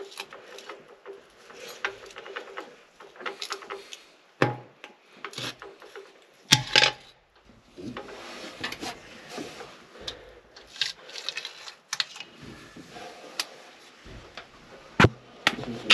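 Metal parts and tools being handled on a Case 1070 Power Shift transmission housing while a cover plate is worked off: irregular scraping and rubbing with scattered clinks and knocks, the loudest clunk about six and a half seconds in.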